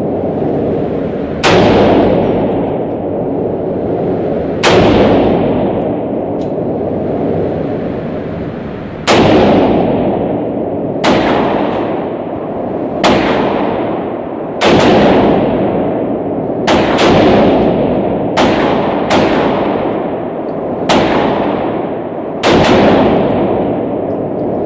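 AR-15 rifle fired in single shots, about a dozen in all, each sharp report followed by a long reverberating tail. The shots come a few seconds apart at first and closer together, about one a second, in the second half.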